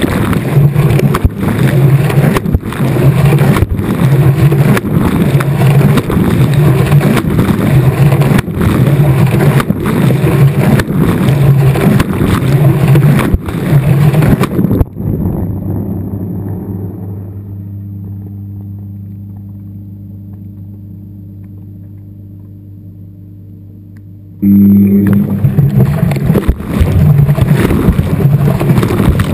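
Washing machine drum turning, heard from inside the drum, with water and clothes churning and a knock about once a second. About halfway through the turning stops and a hum fades away gradually. Near the end the churning starts again suddenly.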